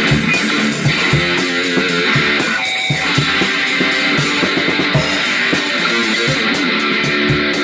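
Rock music: strummed guitar over a steady beat of low thumps, with no pause.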